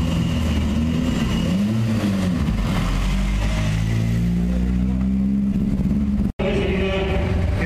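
Historic Ford Escort rally car's engine revving up and down at low speed, then rising steadily in pitch as the car pulls away. After a brief break about six seconds in, another rally car's engine is heard running.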